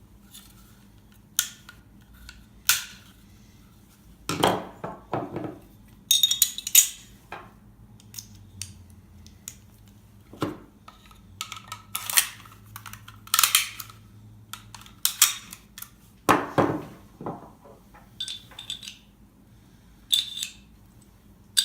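Handgun parts being put back together: irregular metallic clicks, clacks and short scrapes as slides, barrels and springs are fitted and the parts are handled and set down.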